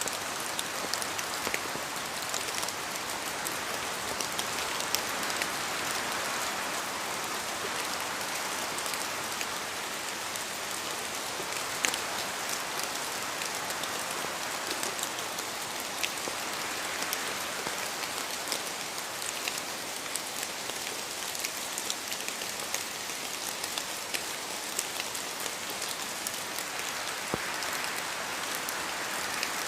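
Steady rain falling in a forest: a continuous hiss of rain with many individual drops ticking sharply through it, swelling and easing slowly a few times.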